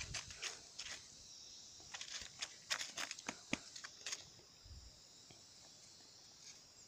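Small sharp clicks and scrapes as a knife blade pokes at wasp comb and dry pine needles on the ground, stopping about four seconds in. Under them runs a steady high chirring of insects.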